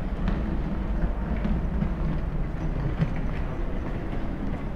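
Outdoor city street ambience: a steady low rumble, with faint light ticks scattered through it.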